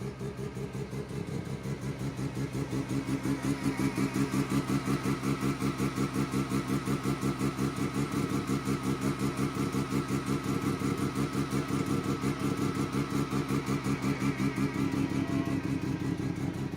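Rotary engine running at a steady idle, its note pulsing in a fast, even, choppy rhythm. It grows louder a few seconds in.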